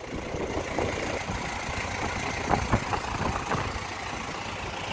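John Deere utility tractor's diesel engine idling steadily, with a few short knocks about halfway through.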